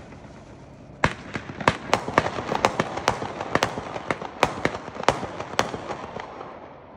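World Class Slimy, a 56-shot, 200-gram consumer fireworks cake, firing. From about a second in, sharp bangs come several a second over a continuous crackling background, then die away near the end.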